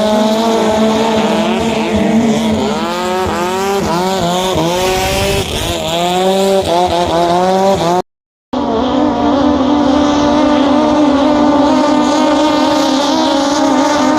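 Longtail racing boat's engine being revved, blipped up in pitch again and again in quick succession. After an abrupt break it is held at a steady high speed.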